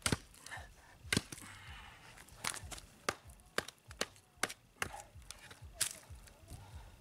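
A Becker BK9 bowie knife chopping into wood: about nine sharp strikes at uneven intervals.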